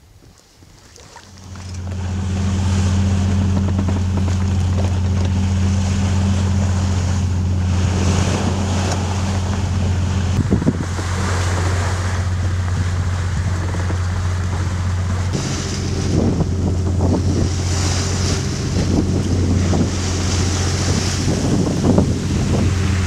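Wind and sea noise aboard a wooden sailing lugger under way, with wind buffeting the microphone and a steady low hum underneath that starts about a second and a half in.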